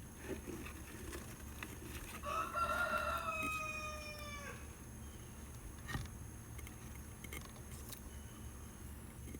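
A single long bird call, held about two and a half seconds and dropping at the end, over a steady low hum; a sharp click sounds about six seconds in.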